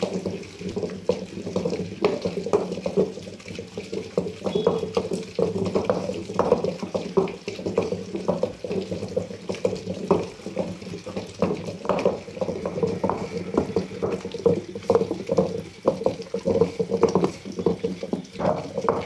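Cooked tomatoes and green chillies being ground into chutney with a stone grinding pestle (rubbu gundu) in a stone mortar. Wet, squelching strokes come at about two a second as the pestle mashes and pushes the pulp around the bowl.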